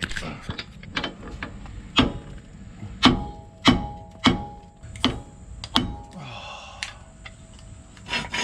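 A series of about seven sharp metal-on-metal knocks, some with a brief ringing, from tools striking a seized, rusted wheel-bearing spindle nut.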